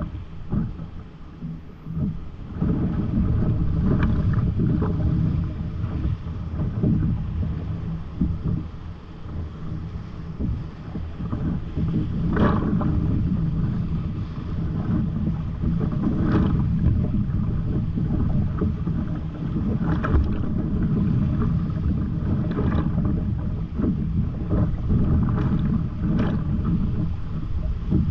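Whitewater rapids of a high-water river, about 430 m³/s, rushing loudly around a kayak, with repeated splashes from paddle strokes and waves breaking over the boat. The sound gets louder a couple of seconds in.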